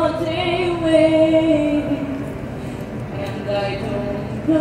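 A woman singing a slow melody in long held notes, pausing briefly in the middle before a new phrase near the end.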